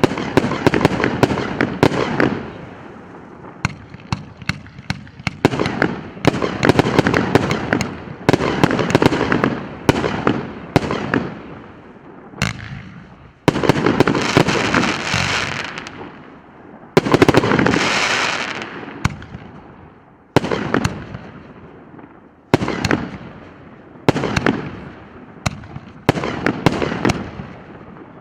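A 114-shot consumer fireworks cake battery of 1.2- and 1.75-inch calibre firing: a rapid string of launch thumps and aerial bursts. About halfway through, and again a few seconds later, come longer, denser stretches of crackling.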